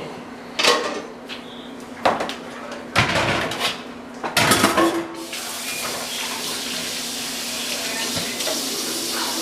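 Pots, pans and utensils clattering in a kitchen with several sharp knocks, then from about five seconds in a steady hiss that runs on.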